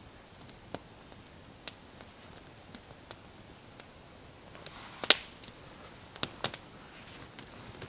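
Small wood campfire crackling with scattered sharp pops. About five seconds in come rustling footsteps on the forest floor and a loud snap, followed by two more sharp snaps.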